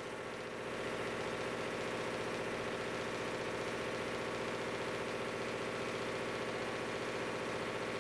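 Engine-driven machinery of a coffee wet-processing plant running steadily, a constant hum with no change in pitch. It grows a little louder about a second in.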